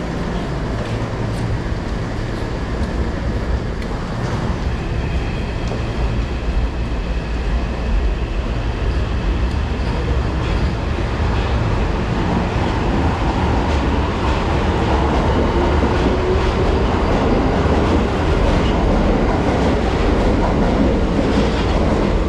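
Tokyo Metro Marunouchi Line subway train at an underground platform: a steady low rumble that grows louder in the second half as the train pulls out, with a motor whine rising in pitch.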